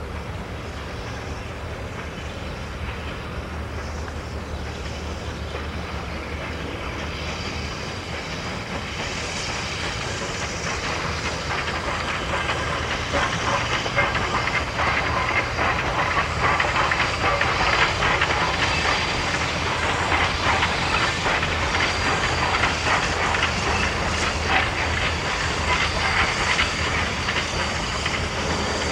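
Baldwin 2-8-2 steam locomotive OP&E No. 19 moving with its passenger train: steam hissing and wheels clicking over the rails. It grows louder as it draws near, about ten seconds in. A thin steady high whine runs through the louder part.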